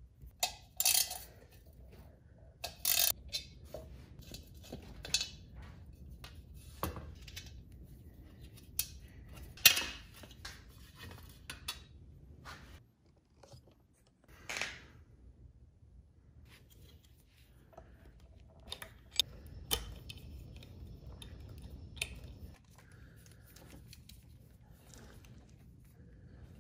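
Scattered clicks, clinks and rattles of hand tools and small metal motorcycle parts being handled, with a few louder clatters in the first half.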